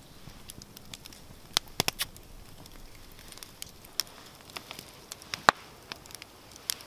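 Wood fire crackling: irregular sharp pops and ticks over a low hiss, the loudest pop about five and a half seconds in.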